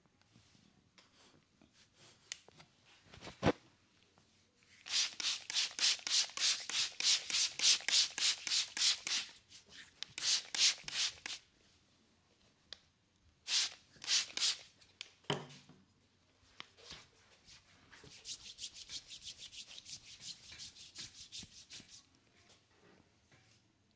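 Hands rubbing briskly over the skin of a bare leg and foot during a massage, in runs of quick, even strokes about four a second, with a few shorter bursts of rubbing between the runs.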